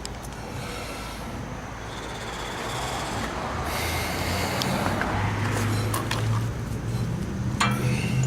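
A motor vehicle's engine running in the street close by, its steady low hum growing louder through the second half.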